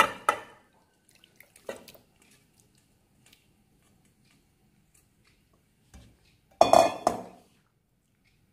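Kitchen utensils knocking and clinking against a metal cooking pot as marinated chicken is transferred into it: a few light knocks, then a louder clatter with a metallic ring near the end.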